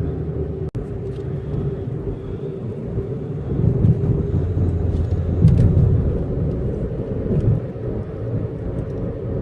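Car driving along: a steady low road and engine rumble that swells a little twice, with a brief cut-out under a second in.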